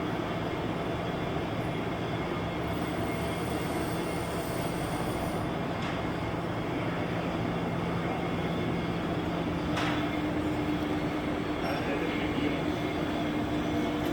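An all-gear lathe running, a steady mechanical hum and rattle of its headstock gearing; about ten seconds in there is a faint click and the pitch of the hum steps up.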